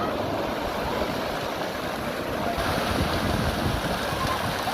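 Wind rumbling on the microphone over the steady wash of sea surf on a beach.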